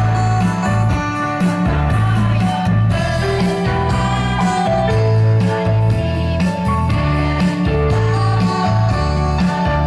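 Instrumental accompaniment for a women's choir song: a heavy bass line and guitar keep a steady beat under sustained melody notes.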